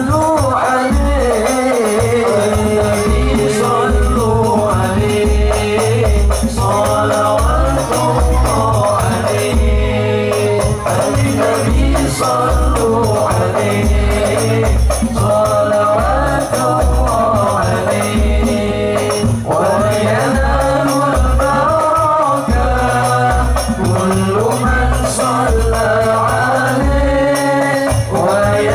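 Al-Banjari sholawat group performing: several men singing a devotional song in unison into microphones over a steady beat of deep frame-drum (terbang) strokes, heard through a sound system.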